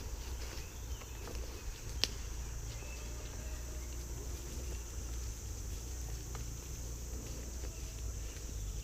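Quiet outdoor ambience with a steady low rumble on the microphone and a faint steady high hiss, broken by one sharp click about two seconds in.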